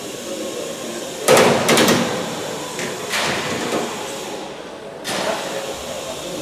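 Pneumatic rivet gun hammering solid rivets through aluminium skin onto a Lancaster fuselage frame, bucked from behind with a bucking block. Two loud rattling bursts come close together about a second in, then shorter, quieter ones near three and five seconds.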